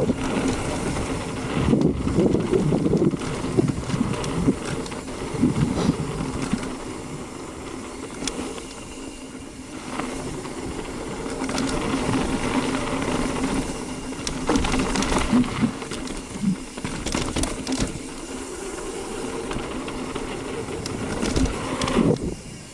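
Mountain bike riding fast down a dirt jump trail: a steady rush of tyres on dirt and air past the microphone, rising and falling with speed, broken by several short knocks and rattles from the bike over bumps and landings.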